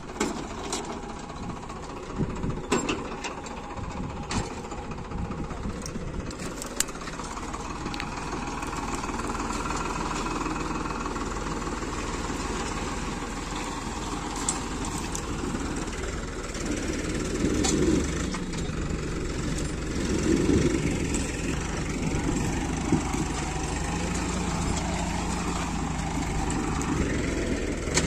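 Tractor diesel engine running steadily under load while pulling a three-bottom mouldboard plough through dry, cloddy soil. A few sharp clicks come in the first several seconds, and the sound swells louder twice in the second half.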